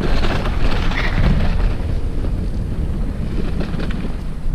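Wind rumbling on the microphone while riding a recumbent trike, a steady low buffeting rumble.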